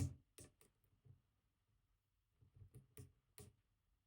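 Faint, scattered metallic clicks of a hook pick and tension bar working the pins of a Robur 2391 safe deposit box lock cylinder, as the gin drivers are set. A few clicks come near the start and a closer cluster about two and a half to three and a half seconds in.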